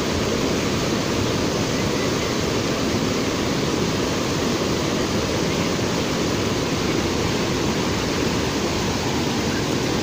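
Steady rushing of a wide, low waterfall, water pouring over several shallow rock ledges.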